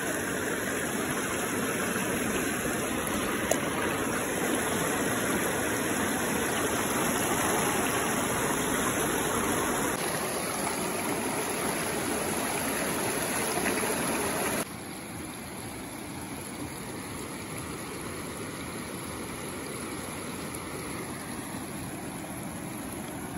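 Steady rush of river water over stones, dropping abruptly to a quieter level about two-thirds of the way through.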